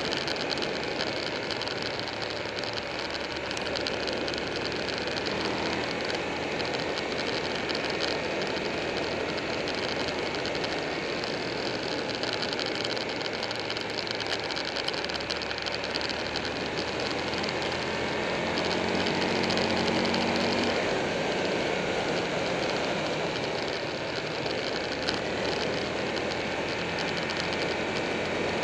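Wind rushing over a camera mounted on a moving Buell 1125R motorcycle, with the bike's 1125 cc V-twin engine running underneath. The engine note comes up and grows a little louder for a few seconds about two-thirds of the way through.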